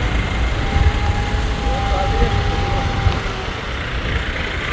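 A vehicle's engine running, with faint voices in the background.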